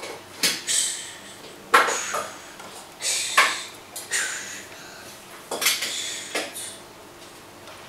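Soldering new capacitors onto a circuit board: about five sharp metallic clicks and taps of the iron and solder on the board, each followed by a short hiss.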